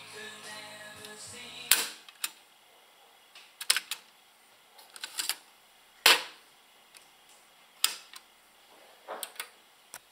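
Music playing back from a JVC KD-X2 stereo cassette deck until a loud click of a transport key stops it about 1.7 s in. It is followed by a run of sharp mechanical clicks and clunks, the loudest near the middle, from the deck's keys and cassette door as the tape is ejected, lifted out and the door shut.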